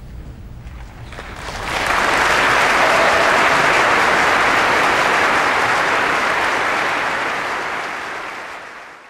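Audience applause breaking out after a low final chord dies away, swelling to a dense, steady clapping and then fading out near the end.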